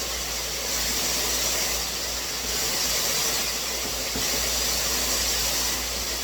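HydroJet high-pressure shower head spraying water at full pressure, a steady hiss that swells and eases every second or two.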